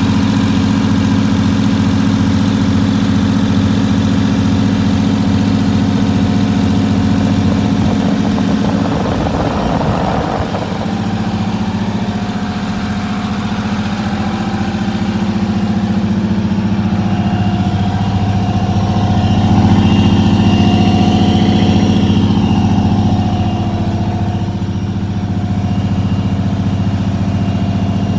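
A GMC RV's engine idling steadily, heard from underneath the vehicle, a little louder for a few seconds past the middle.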